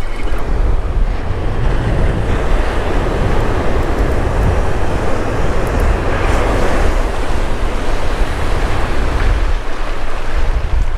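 Ocean surf breaking and washing up the beach, with wind buffeting the microphone. The wash swells to its loudest about six or seven seconds in.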